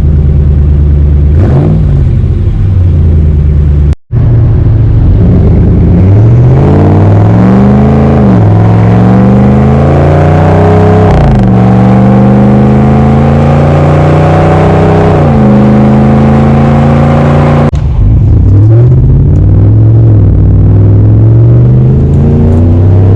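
Ram 1500's Hemi V8 through aftermarket Totalflow mufflers on the dual exhaust, accelerating with a deep rumble. The engine note climbs and drops back several times, with a brief cut-out about four seconds in.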